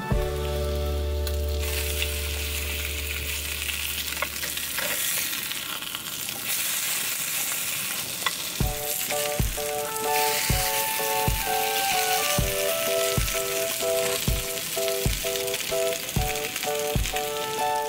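French toast sizzling as it fries in a small square pan, under background music that picks up a steady beat about halfway through.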